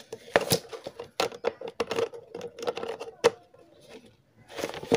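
Irregular clicks and knocks of a rechargeable emergency light's plastic parts being handled and fitted together on a workbench, over a faint steady hum.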